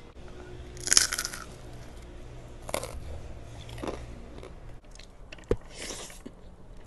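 Mukbang eating sounds close to the microphone: several separate crunchy bites with chewing, the loudest about a second in.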